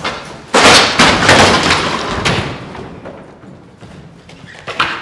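Metal-framed school chairs and desks crashing and clattering as they are thrown and knocked over: a dense run of bangs starts about half a second in and dies away over about two seconds, then two sharp knocks come near the end.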